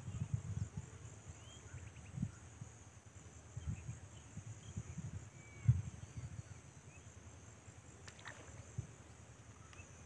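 Steady high-pitched insect chirring, with a few faint bird chirps and irregular low muffled thumps on the microphone, the loudest a little past halfway.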